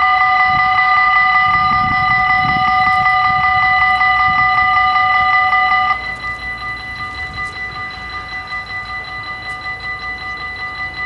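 Warning bells of a Dutch AHOB level crossing ringing in a fast, steady clanging rhythm while the half-barriers come down. About six seconds in, as the barriers reach the lowered position, the ringing suddenly drops to a quieter, thinner level with some of the bells silenced.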